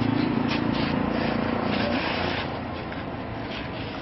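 Motor vehicle engine running steadily, a low hum that stops about halfway through, over street noise with a few short clicks.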